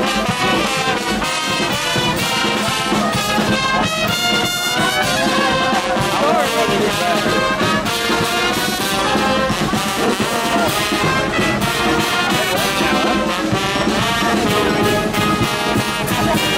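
A brass band playing, with trumpets and trombones over a steady drum beat.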